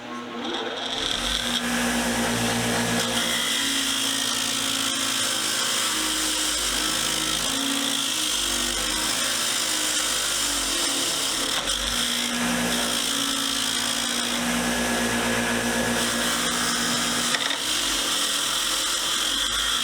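A power tool starts up about a second in and runs steadily, its pitch shifting a little now and then as it works on the rusty vise parts.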